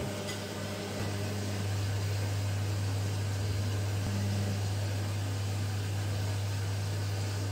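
A short click, then a steady low electric hum from a small fan-type motor, with an even hiss over it; it gets a little louder about a second in.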